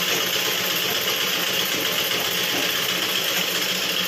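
Domestic sewing machine running steadily at speed, stitching a seam in fabric.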